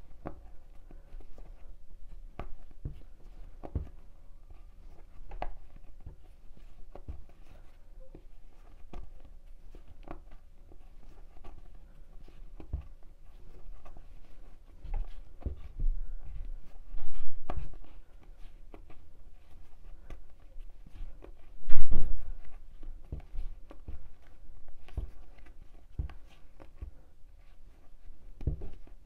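Hand crocheting with macrame yarn: soft, irregular clicks and handling noise from the hook and yarn as stitches are worked, with two louder thumps in the middle.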